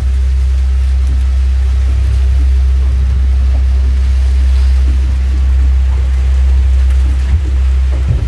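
Night thunderstorm heard from inside a small boat's pilothouse: rain and wind over a loud, steady low rumble, with a couple of light knocks near the end.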